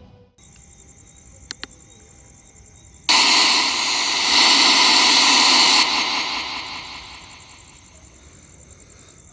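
FCD spirit box sweeping radio stations, hissing static through its speaker. Two quick clicks come about a second and a half in, then a loud burst of static from about three seconds in lasts nearly three seconds before it fades back to a low hiss.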